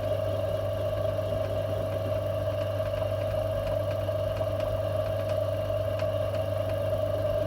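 Metal lathe running steadily with its chuck spinning: a constant motor hum under a steady whine, with a few faint ticks. The owner thinks it is running a lot slower than it should.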